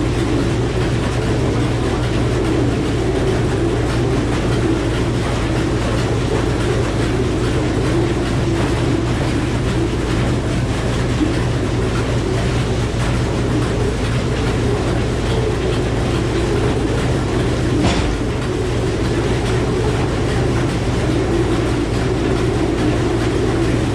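Frick sawmill running steadily: the power unit's engine and the spinning 48-inch circular saw blade, with a steady low hum. A single short knock about eighteen seconds in.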